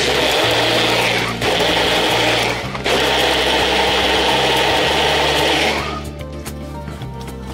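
Personal bullet-style blender running in three short pulses, chopping cinnamon sticks and cloves in water, and stopping about six seconds in.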